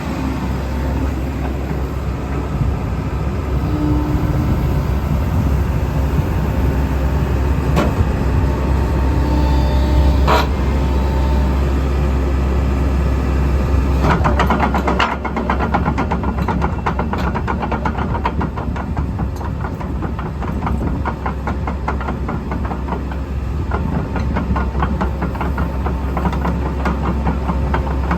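JCB JS130 tracked excavator running, its diesel engine holding a steady low hum. There are thin squeals and a few sharp knocks in the first half, then a fast run of metallic clanks from about halfway through.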